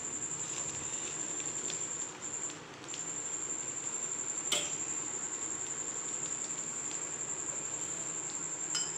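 A cricket trilling steadily at a high pitch, with a short break about two seconds in. Two sharp clicks, one about halfway through and one near the end.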